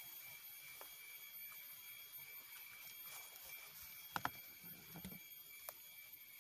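Faint, steady, high-pitched drone, typical of insects in a tropical palm grove. About four seconds in come two sharp knocks in quick succession, then a brief low rub and a single click, as something is handled against the palm trunk.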